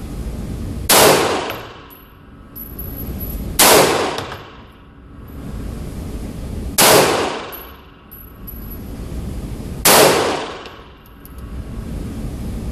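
Four gunshots about three seconds apart, each a sharp crack with a long echoing tail that fades over about a second.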